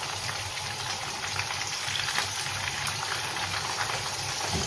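Pomfret fish pieces deep-frying in hot oil: a steady sizzle with frequent small crackling pops.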